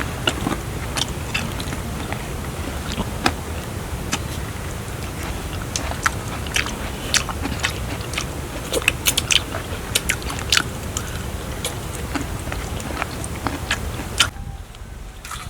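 A person biting and chewing crunchy food close up, with many sharp crunches over a steady low rumble. The sound cuts off abruptly about a second before the end.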